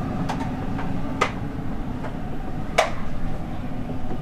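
Steady low rumble of a passenger train car's interior, with two sharp clicks, about a second and a half apart, near the middle.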